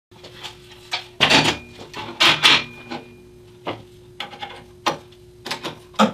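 Aluminum sliding-table plate being handled and set down on a band saw table: metal scraping and a string of knocks and clatters, loudest in the first three seconds, then lighter clicks, over a steady low hum.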